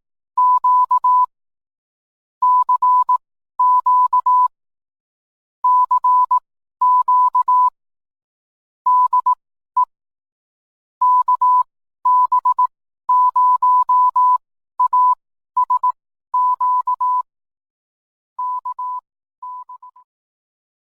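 Morse code sent as a steady beep tone, keyed in short and long elements in spaced groups like letters and words, growing fainter over the last few characters before it stops.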